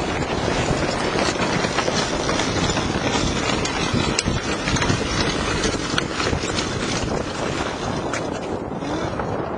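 Wind buffeting the microphone on the foredeck of a sailboat under sail, with water rushing and splashing along the hull as the bow cuts through choppy water.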